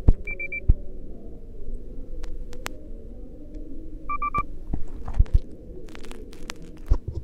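Hospital-room ambience: a steady muffled background of room noise with scattered clicks and knocks, and an electronic device beeping three times in quick succession, once just after the start and again about four seconds in. Two sharp knocks come in the first second, and another near the end.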